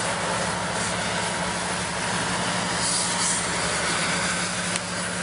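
Amtrak F59PHI diesel-electric locomotive's engine running with a steady low hum as it shoves a Pacific Surfliner passenger train out of the station.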